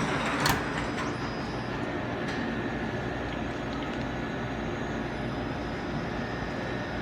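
Commercial kitchen machinery running: a steady whirring hum from fans and motors, with a single sharp click about half a second in.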